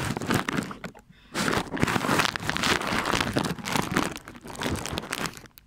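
Takeaway food packaging being opened and handled close to the microphone: loud crinkling and rustling of paper and plastic, with a short pause about a second in, stopping shortly before the end.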